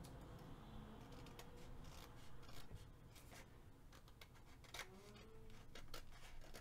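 Scissors cutting along the edge of a paper journal page: a series of faint, irregular snips.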